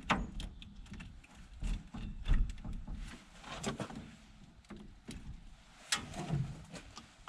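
Irregular clicks, knocks and light rattles of cables and clamps being handled and hooked onto a car battery.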